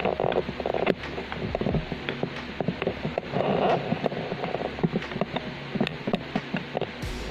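Small white wall pieces of a scale model house being handled and pressed into place: scattered light clicks and taps, with a short rubbing scrape at the start and another a little past three seconds in.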